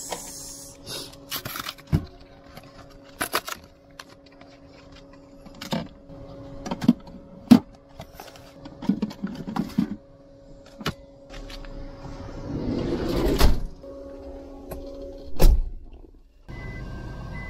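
Aluminium beer cans being loaded into a portable car fridge: a string of clinks and knocks over a steady low hum, with a louder rustle and knock about three-quarters of the way through. Near the end the sound changes to steady outdoor noise with a repeating beep.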